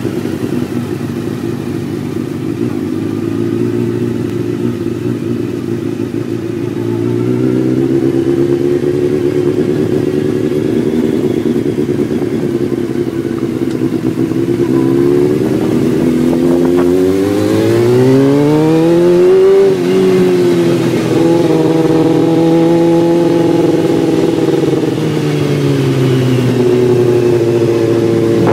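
Suzuki GSX-R sportbike's inline-four engine running as the bike is ridden at low speed. Its pitch holds fairly steady, climbs smoothly for several seconds just past the middle, then falls away sharply and settles again.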